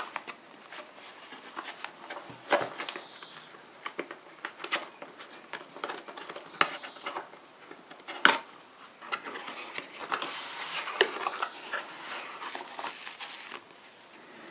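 A small cardboard brake-pad box handled and opened by hand: the carton is turned, its end flap pried open with sharp clicks and scrapes, the loudest about two and a half and eight seconds in, then a stretch of paper rustling as stickers are drawn out.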